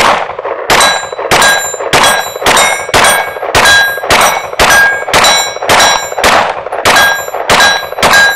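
Shadow Systems MR920 Combat 9mm pistol fired in a rapid, steady string of about fifteen shots, roughly one and a half to two a second. Each shot carries a short ringing tone. The string runs until the magazine is emptied.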